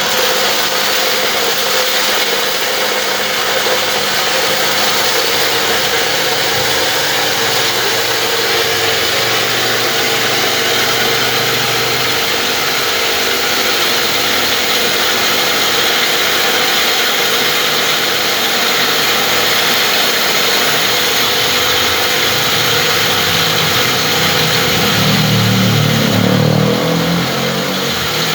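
Disk mill flour-grinding machine running steadily with a loud, even mechanical din; a deeper hum swells briefly near the end.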